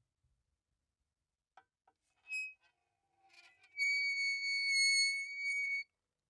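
Metal door squeaking on its hinge: a couple of faint clicks and a short squeak, a lower creak, then a long steady high-pitched squeal of about two seconds that cuts off suddenly.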